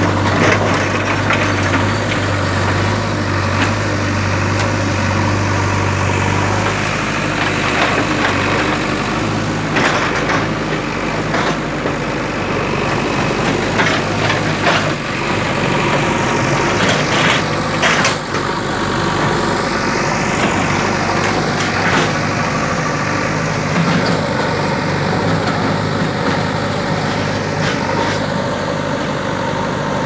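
JCB backhoe loader's diesel engine running steadily under work. Its low hum drops about seven seconds in, and there are a few sharp knocks and clatters around the middle.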